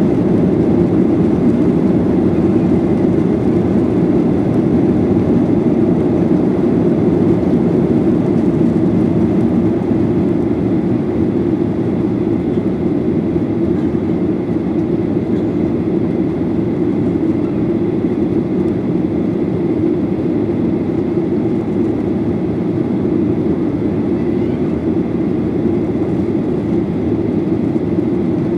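Inside the cabin of a Boeing 737-800 at takeoff thrust, its CFM56-7B turbofans run with a steady low rush through the end of the takeoff roll and into the climb-out. The noise eases slightly about ten seconds in.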